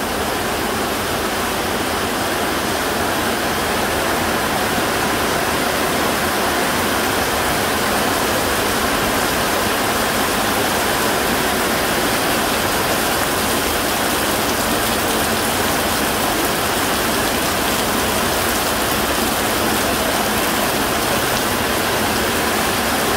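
Heavy rain falling steadily: a dense, even hiss of downpour that swells a little over the first few seconds and then holds.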